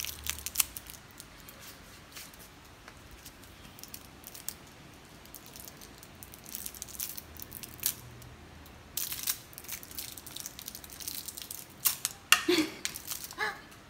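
Plastic sweet wrapper crinkling and tearing as small hands pick at it, in scattered crackles that come thickest about nine seconds in and again near the end.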